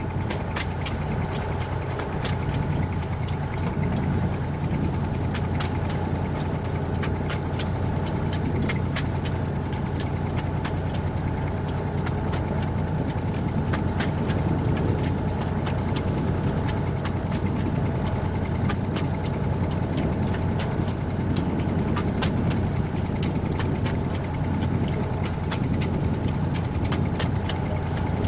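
Narrow-gauge diesel train under way. Its engine runs with a steady low drone and a thin steady higher tone, and frequent sharp clicks and rattles come from the rolling train on the track.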